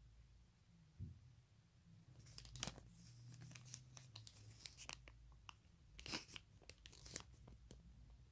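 A folded paper receipt being unfolded and handled close to the microphone: crisp rustling and crinkling in scattered crackles, loudest about two and a half seconds in and again around six to seven seconds. A soft bump about a second in.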